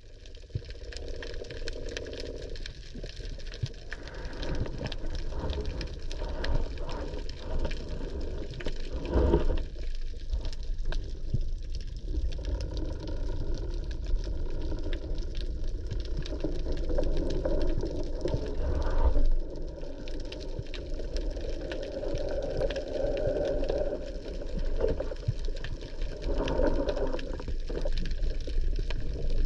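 Muffled underwater noise picked up by a camera in its housing: a steady low rush of water with many scattered faint clicks, swelling louder a couple of times.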